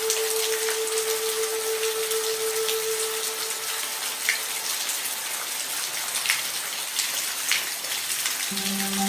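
Steady rain with individual drops pattering, under soft sustained music tones: one held note fades out a few seconds in and new notes come in near the end.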